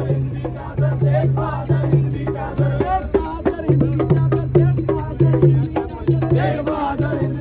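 Devotional folk music: rattling percussion over a deep bass note that repeats in short stretches, with voices singing above it.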